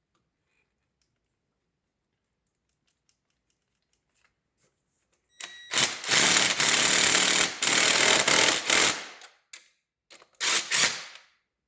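Impact wrench hammering a bolt down: one loud run of about three and a half seconds starting about halfway through, then a shorter burst near the end, as one bolt is run tight and another is started.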